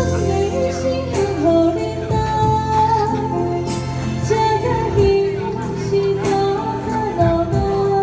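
A woman sings a Taiwanese Hokkien ballad into a microphone in long, held notes. She is backed by an electronic keyboard with bass, and a regular beat of light percussion hits sounds under the voice.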